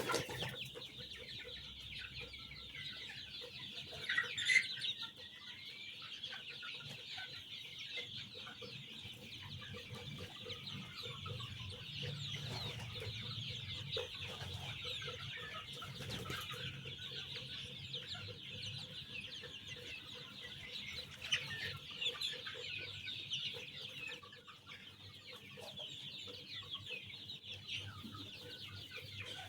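A large flock of young chicks peeping continuously, a dense chorus of many overlapping high cheeps, with a louder call standing out about four seconds in.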